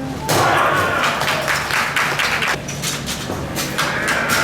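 Irregular sharp slaps and thuds with crowd clapping and noise in a hall, the sounds of a pro-wrestling match.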